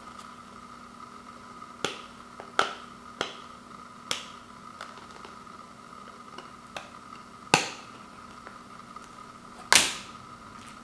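Sharp plastic clicks from a Blu-ray case being handled as fingers press the disc's centre hub, about eight in all at uneven intervals. The loudest snap comes near the end, as the disc pops free of the hub.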